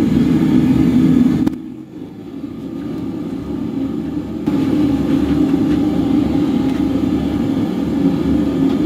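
Gas wok burner running at a high flame, a steady low rushing rumble. It drops away abruptly about a second and a half in and comes back loud about four and a half seconds in.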